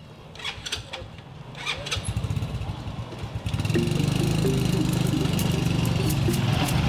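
A small motorcycle engine starts with a fast low pulsing and runs as the bike pulls away, after a few clicks and knocks. About three and a half seconds in, louder background music with a steady beat comes in over it.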